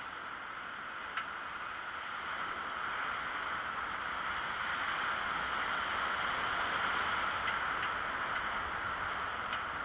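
Steady rushing noise of a bicycle rolling along a paved path, wind and tyre noise, with a few faint clicks about a second in and near the end.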